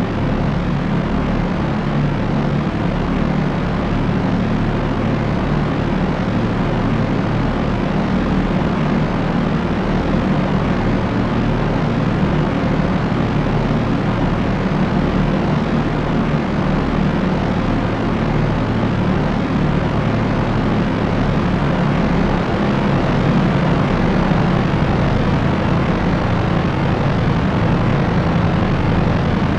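Propeller aircraft running steadily: an even drone of its propellers, with a low hum under a wide hiss.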